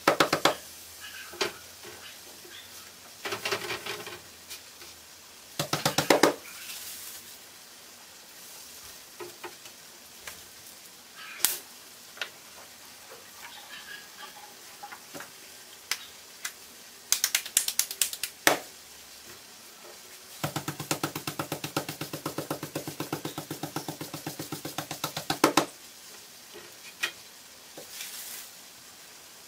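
Hands patting corn masa into tortillas: bursts of quick, rhythmic slapping pats, the longest running about five seconds in the last third.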